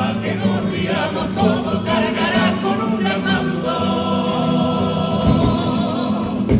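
A male comparsa choir singing together in harmony. About four seconds in, the voices settle on a long held chord.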